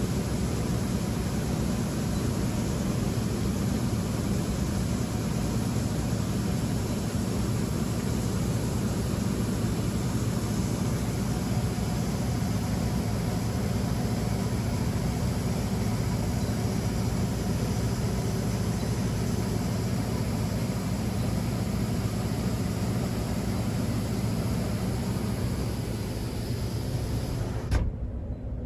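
Steady drone of large farm machinery running: a low engine hum under a wide, even hiss. Near the end it changes abruptly, the hiss cutting off with a short thump.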